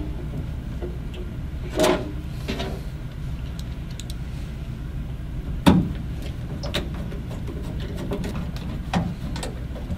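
Scattered clicks and knocks of hand work as a transformer is set onto a boiler's sheet-metal control panel and screwed down with a hand screwdriver, over a steady low hum. The louder knocks come about two and about six seconds in.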